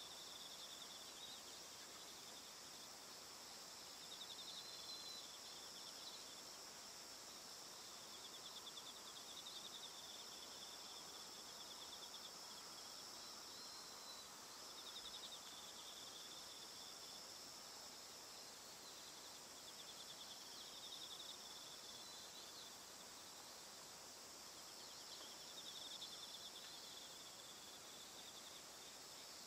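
Faint chorus of field insects: a steady high hiss with a pulsing trill that swells and fades every few seconds.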